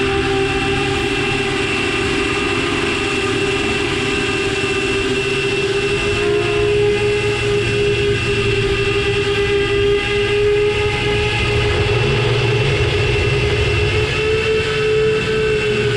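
DarwinFPV Darwin 129 FPV quadcopter's motors and propellers whining steadily in flight, a held buzzing tone over rushing noise. The pitch rises a little near the end and then eases back as the throttle changes.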